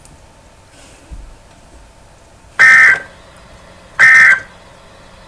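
Emergency Alert System end-of-message data bursts: two short, loud bursts of shrill digital tones, about a second and a half apart, signalling the end of the alert.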